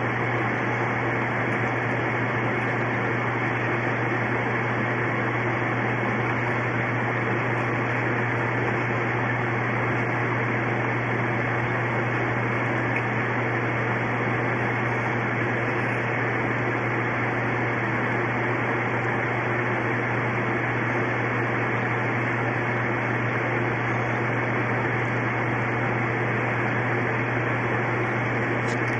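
Steady, unbroken hum with an even hiss over it, like a fan or other machine running, with no strokes, clicks or changes.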